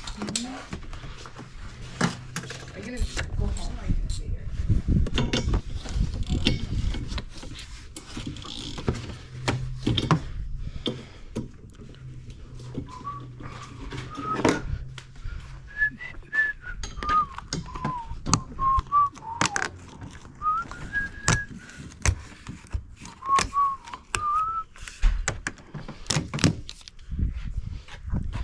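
A person whistling a wandering tune for about ten seconds in the middle, over a steady run of sharp clicks, knocks and rattles from hands and tools working on the car's windshield cowl panel.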